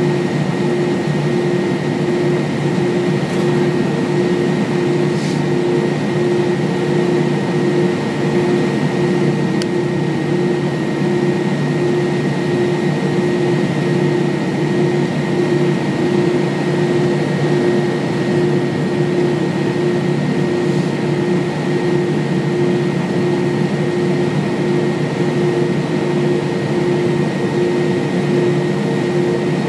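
Cabin noise inside an Airbus A320-232 taxiing: a steady drone from its IAE V2500 turbofans at low taxi thrust mixed with the cabin air-conditioning hiss, holding one constant hum with a thin high whine above it.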